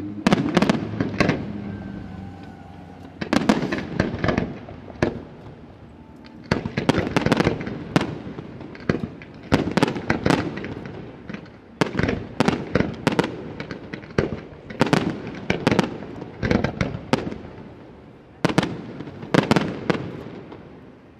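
Aerial fireworks display: volleys of shells bursting, heard as clusters of sharp bangs that come every two to three seconds.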